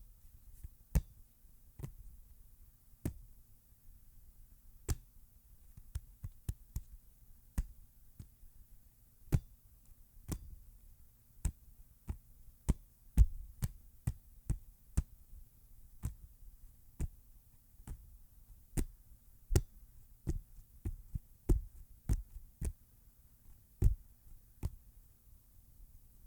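A football being palmed: a hand repeatedly slapping and gripping the ball, giving sharp single slaps at irregular intervals, sometimes two in quick succession, over a faint low hum.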